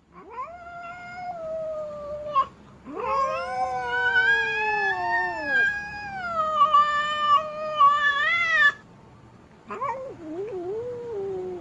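Female cat caterwauling in drawn-out howls that the uploader calls a displeased wail. There is a short howl, then a long one of nearly six seconds that sags in pitch and rises again at the end, then a wavering howl near the end.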